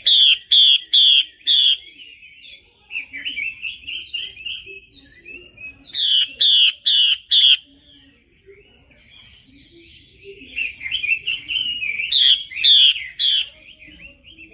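Female Chinese hwamei singing loudly. Three times it gives a quick run of four or five ringing, downward-sweeping notes, about two a second, and in between it keeps up a softer, rambling warble.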